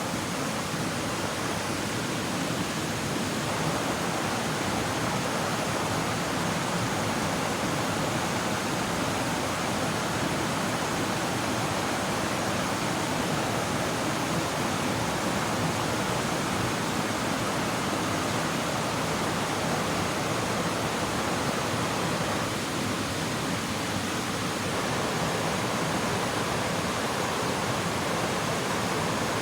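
River water rushing steadily over rocks, a constant even hiss.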